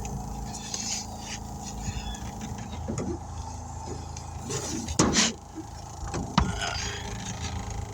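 Steady mechanical hum while a patched tire is aired up to seat its bead. A few sharp knocks and short rubbing sounds come about three, five and six and a half seconds in.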